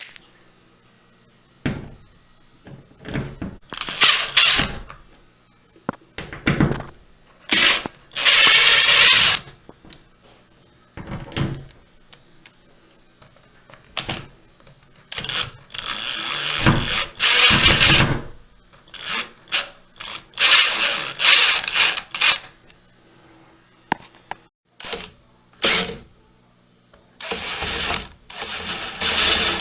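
Hands working on the plastic parts of a bathroom ventilation fan during disassembly: irregular scraping, rustling and clicking in bursts of a second or two. A faint steady hum runs underneath.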